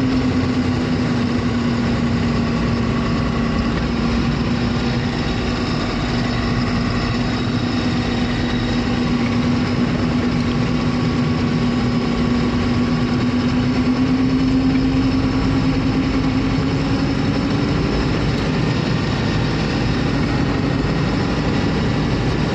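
Vehicle engine running steadily with a low hum that rises a little in pitch about two-thirds of the way through, over a constant rushing noise.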